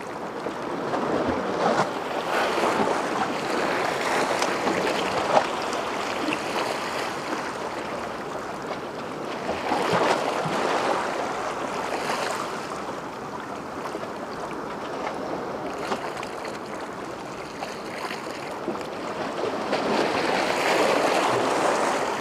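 Ocean waves washing in, a steady rushing that swells and fades every eight to ten seconds. A single sharp click comes about five seconds in.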